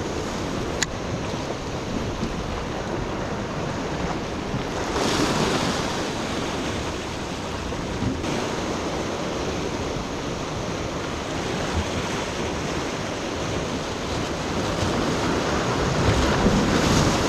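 Ocean surf washing against the rocks with wind buffeting the microphone, swelling louder about five seconds in and again near the end; a single sharp click about a second in.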